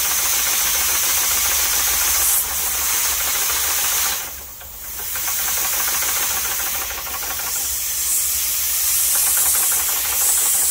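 Vintage Märklin model steam engine running on compressed air: a steady hiss of escaping air, with moisture blowing out of its leaking sight glass. The hiss drops briefly about four seconds in, then returns.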